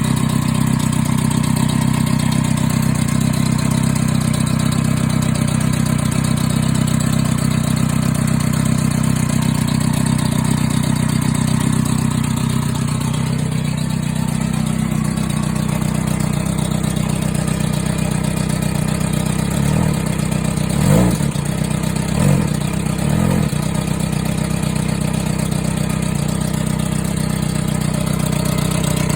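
Yamaha XJR400R air-cooled inline-four motorcycle engine idling, with an abnormal noise that the owner wonders is tappet noise. The idle settles a little lower about halfway through, and the throttle is blipped a few times, briefly, about two-thirds of the way in.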